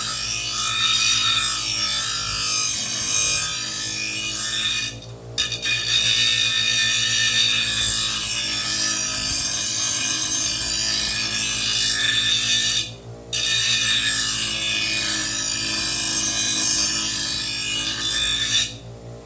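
Steel lawn mower blade edge being ground on a running grinder's stone wheel, a harsh rasping grind over the motor's steady hum. The grinding stops briefly about five seconds in and again about thirteen seconds in, as the blade is lifted off between passes, and ends shortly before the close while the motor keeps running.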